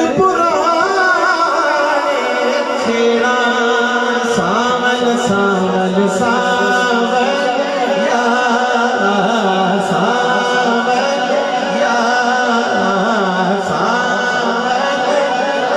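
A man's voice singing a naat, an Urdu devotional poem, into a microphone over a PA, in long, wavering, ornamented melodic lines.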